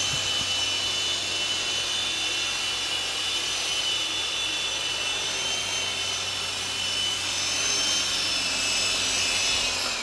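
Esky Big Lama coaxial RC helicopter's electric motors and twin rotors whining steadily in flight, with a low hum beneath. The whine falls slightly in pitch near the end as it winds down.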